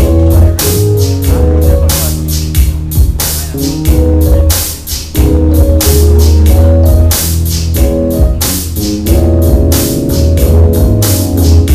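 Loud dance music from a DJ's sound system: a steady drum beat over heavy bass, with keyboard chords.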